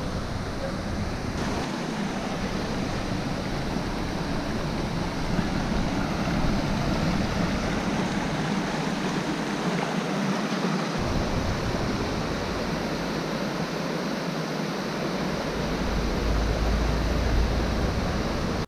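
Shallow rocky stream rushing over stones, heard close up as a steady wash of water noise; a low rumble joins it near the end.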